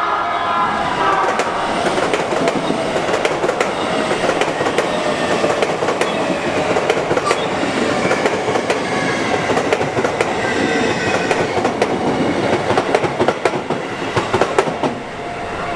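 Sotetsu Line electric train running over a level crossing, its wheels clacking over the rail joints in a long run of knocks, with the tail of its horn fading in the first second. The clacking ends about 15 seconds in.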